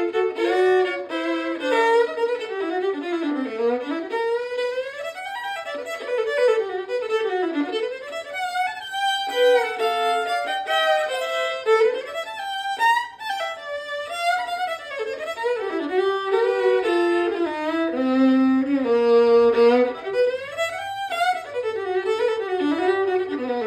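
Fiddle played with the bow: a tune full of sliding notes and double stops, going down to lower notes near the end. Its tone is big and bassy, responsive and loud.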